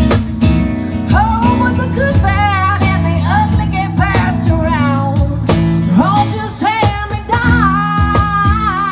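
Live country song: a woman singing a held, wavering melody over a band with guitar.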